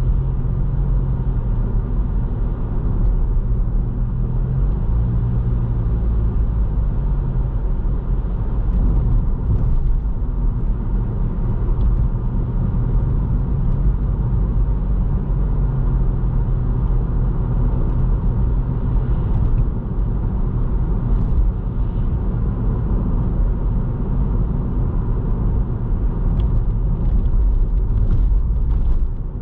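Toyota Vitz compact car driving on the road: a steady low rumble of engine and tyre noise, the engine hum shifting slightly in pitch now and then.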